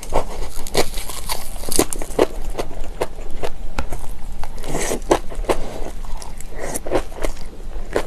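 Close-miked chewing of crunchy kimchi: irregular wet crunches and clicks, about two or three a second.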